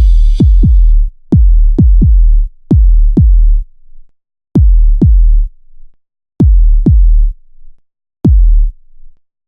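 Electronic drum-machine music: deep kick drums that drop in pitch into long low tails, hitting mostly in pairs. The gaps between the pairs grow longer and the track stops about nine seconds in.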